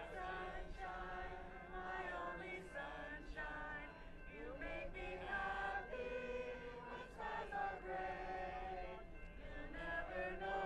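A group of people singing together, a slow chant-like song of held notes.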